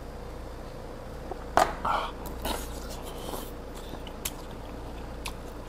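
Table-side eating sounds: a sharp knock about a second and a half in, then small clicks of a metal spoon against an earthenware bowl of sundae-gukbap, with chewing.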